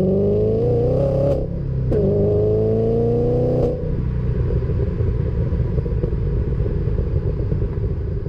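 Exhaust of a 2013 Ford Mustang GT's 5.0 L V8, fitted with long-tube headers and a catted X-pipe, heard from the rear bumper under hard acceleration. The revs climb through one gear, break briefly for an upshift about a second and a half in, and climb again in the next gear. About three and a half seconds in they level off into a steady, lower running note.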